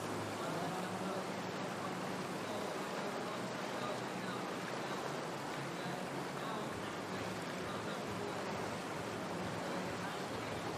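Steady rushing of white water pouring through an artificial slalom course's rapids.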